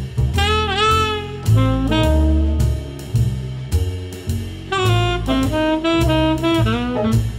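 Background jazz music: a melodic lead line with bending notes over a walking bass and drums.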